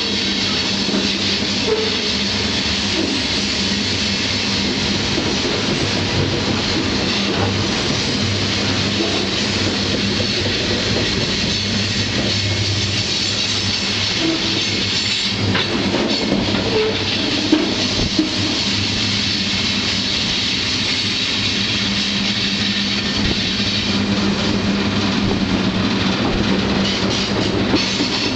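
Freight train running, heard from aboard a car: a continuous rolling rumble of wheels on rail with a steady low hum, and a few sharp knocks from the wheels and couplings about halfway through.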